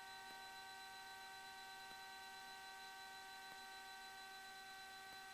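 Near silence on the aircraft's intercom audio feed: a faint steady electrical hum and hiss with several high whining tones, and no radio calls.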